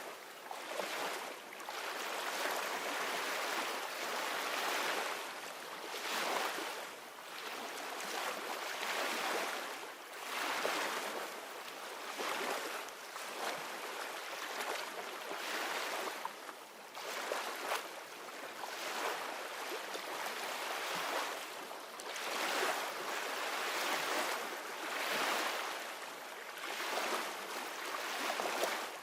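Ocean waves breaking and washing on a shore, swelling and falling away every two to three seconds.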